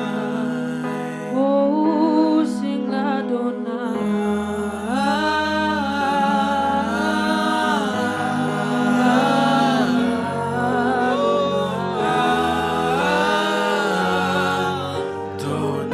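Slow worship song: sung melody over held keyboard chords, with a bass line coming in about four seconds in.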